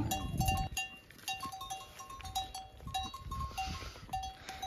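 Small metal bells on the necks of walking buffalo clinking irregularly, several short ringing notes a second, with scattered clicks.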